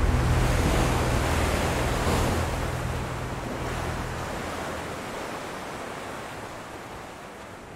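Sea water rushing and washing in a steady surf-like noise, fading out gradually. A low steady drone underneath stops about four seconds in.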